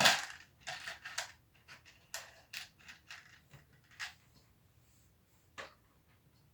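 Plastic Lego Technic pieces being handled and sorted: a series of short clicks and rattles, loudest right at the start, then sparser, with a last sharp click about five and a half seconds in.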